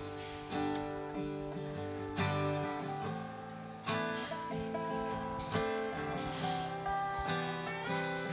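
Instrumental duet with no vocals: a flat-top acoustic guitar strums chords under a lap-played resonator guitar (dobro) playing slide lead, with notes gliding between pitches.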